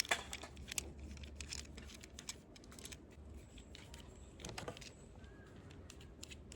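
Faint, scattered clicks and rattles of small plastic toy parts being handled, with a short cluster of clicks a little past the middle.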